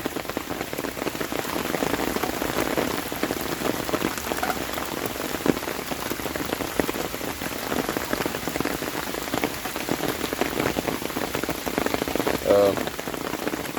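Heavy rain falling steadily, a dense hiss of many small drop hits.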